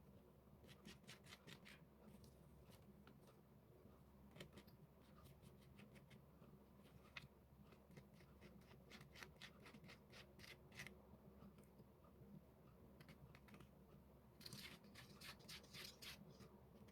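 Faint paper-crafting sounds: several short runs of quick, crisp clicks and scratches as paper is worked by hand, over a steady low hum.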